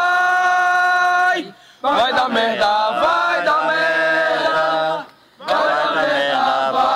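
Chanted singing: a voice holding long, steady notes in phrases, breaking off briefly about a second and a half in and again about five seconds in.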